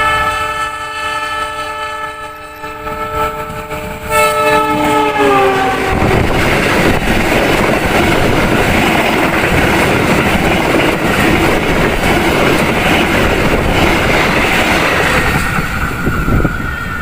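Train horn sounding one long blast that falls in pitch as the locomotive passes, then the train running past at speed with loud rushing and wheel clatter on the rails until near the end.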